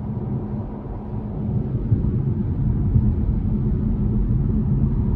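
Steady low rumble of road and engine noise inside the cabin of a moving BMW 530i xDrive, growing a little louder over the first two seconds.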